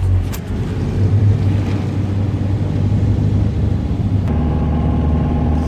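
Steady low rumble of a vehicle's engine and road noise, heard from inside the cabin. About four seconds in, the sound changes and a steady hum joins the rumble.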